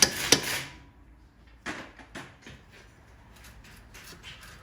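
Hammer striking the upper ball joint into place on the front suspension, with two sharp blows at the start. After those come a few lighter knocks and faint clicks as the parts are handled.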